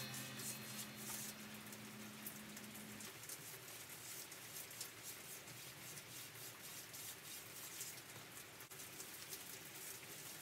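Faint, steady rain pattering outside, with fine scattered drop ticks. The last held note of background music dies away over the first three seconds.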